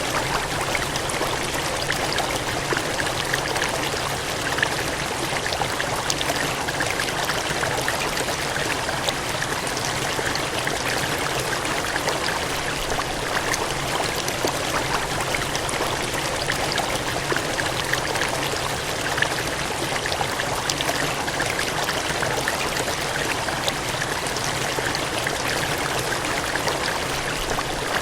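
Water gushing and splashing in a steady, continuous rush, full of small crackling splashes.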